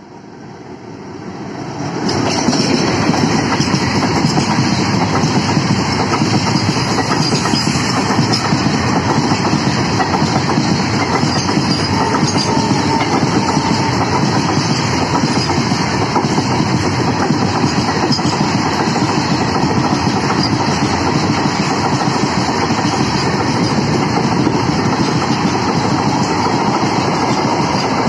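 A WDM3A ALCo diesel locomotive (16-cylinder ALCo 251) comes up and passes, growing loud over the first two seconds. Then a long rake of empty freight wagons rolls past at speed, a steady loud clatter of wheels over the rail joints.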